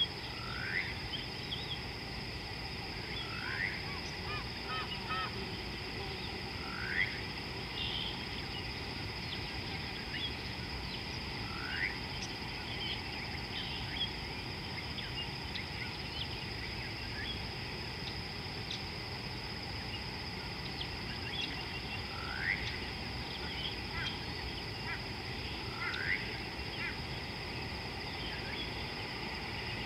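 Wildlife ambience: a steady high insect drone, with a short downward-sliding animal call heard six times, every few seconds, and scattered faint chirps.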